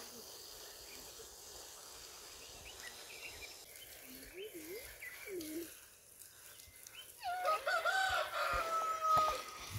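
A rooster crows once, one long call of about two seconds starting about seven seconds in. Before it the yard is quiet, with a few short bird chirps and low calls.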